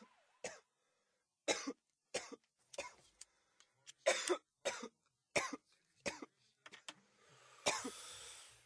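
A person's coughing fit after a hit on a joint: about a dozen harsh coughs at uneven spacing, ending in a longer noisy breath near the end.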